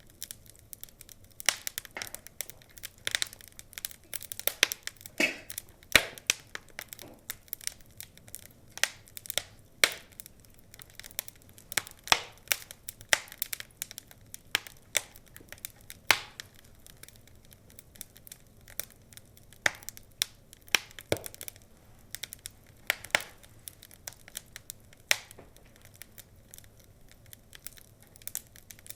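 Wood fire in a fireplace crackling, with irregular sharp pops and snaps over a low hiss; the loudest pops come about six and twelve seconds in.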